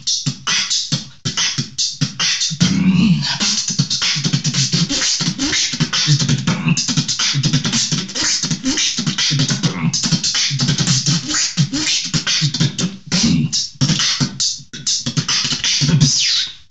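Solo human beatboxing: rapid mouth-made kicks, snares and hissing hi-hats, with a low bass tone held under the percussion from about three seconds in. It stops abruptly at the end.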